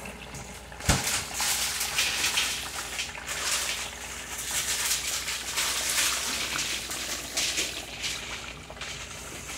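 Battered chicken pieces deep-frying in a skillet of hot oil, sizzling and crackling steadily, with a single sharp knock about a second in.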